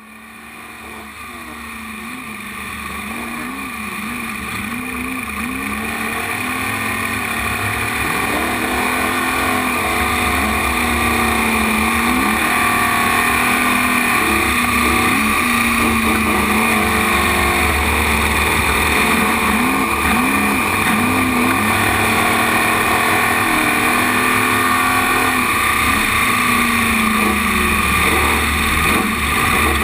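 Trophy Truck's V8 engine heard from on board, revving up and dropping back again and again over a heavy low rumble. The sound fades in over the first several seconds, then holds steady and loud.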